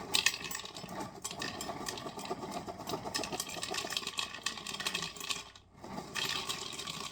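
Small round corn-cereal balls pouring into a bowl, a dense rattling patter that stops briefly about five and a half seconds in, then starts again.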